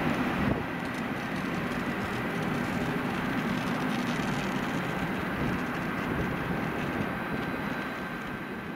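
ÖBB Railjet passenger train, its driving trailer leading, rolling slowly into a station: a steady rumble of wheels on rail with a thin high tone held over it, fading slightly near the end.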